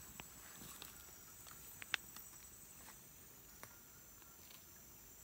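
Quiet rainforest ambience: a faint, steady, high-pitched insect drone, with scattered small ticks and one sharper click just under two seconds in.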